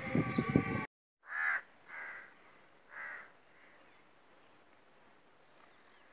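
A bird calling three times, the calls about half a second to a second apart, over a steady faint high-pitched insect buzz. Just before the calls, a louder jumble of outdoor sound cuts off abruptly, just under a second in.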